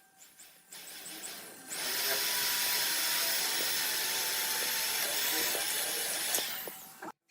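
A power tool working wood runs steadily for about five seconds, building up over the first second or so and stopping shortly before the end.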